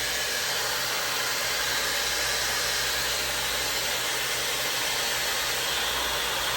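5-in-1 hot-air styler running steadily with its curling nozzle on, its fan blowing a constant rush of air while curling a section of hair.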